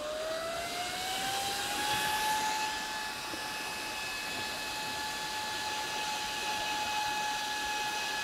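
Small computer fans whirring over a hiss of moving air; one fan, just switched on, spins up with a whine that rises in pitch over the first two seconds, then runs at a steady pitch.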